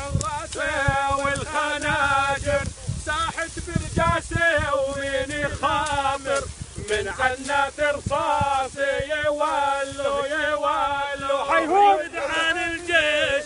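Male voices singing a chant, the melody held long and wavering with ornaments, without pause.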